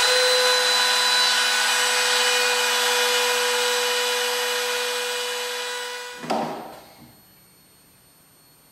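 Trim router with a spiral bit running at full speed, a steady high whine, as it routes a hinge mortise into the edge of a walnut door frame. It is switched off about six seconds in and goes quiet.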